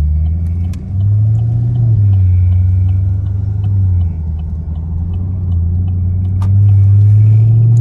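Chevrolet Camaro SS's 6.2-litre V8 with an axle-back muffler delete, heard from inside the cabin, pulling away and accelerating. The low exhaust note steps up and down a few times and climbs again near the end.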